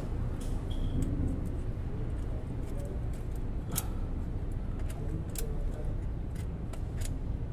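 Scattered light metallic clicks and taps from hand work on a truck's clutch release bearing inside the bell housing, over a steady low background rumble.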